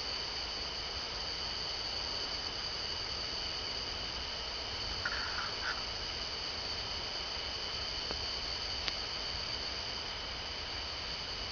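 Steady high-pitched trilling of a summer night insect chorus. A brief chirp comes about five seconds in and a single sharp click near nine seconds; no thunder is heard.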